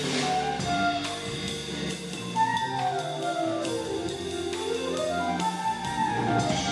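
Live jazz sextet playing: a melody line runs down and back up in quick steps over walking upright bass and drum kit, with a cymbal crash at the start.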